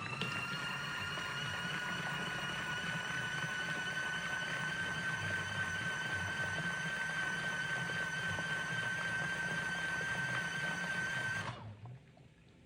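Motor of a small collapsible mini washing machine driving its wash pulsator: a high whine that rises in pitch as it spins up, holds steady, then cuts off suddenly about a second before the end.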